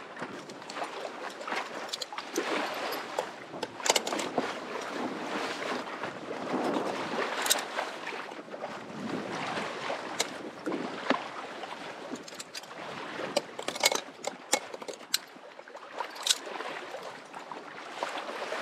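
Water sloshing and gurgling along a sailboat's hull in light air, with scattered sharp clicks and knocks over it.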